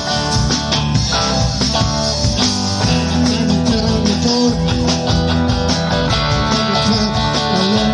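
Rock music: an instrumental passage led by guitar, with the band playing under it and no singing.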